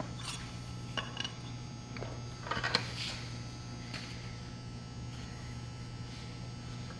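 Steady low electrical hum, with a few light metal clinks and knocks; the loudest is a short cluster near three seconds in.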